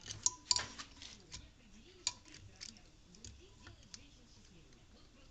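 Light metallic clicks and taps of valve parts and tools being handled during cylinder head assembly, bunched in the first second and a half, then single clicks every second or so.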